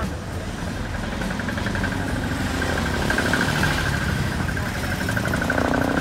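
Bus engine and road noise heard from inside the moving bus, a steady low rumble with a high, pulsing whine over it.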